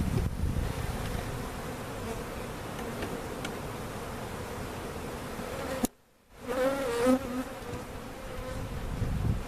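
A mass of honey bees buzzing in a steady hum. The sound drops out briefly about six seconds in, and the buzzing comes back with a wavering pitch.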